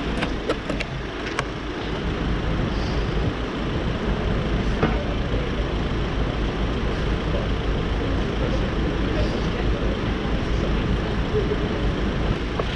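Steady city traffic noise at a busy junction: a low rumble of vehicles, with a few sharp clicks in the first second and a half.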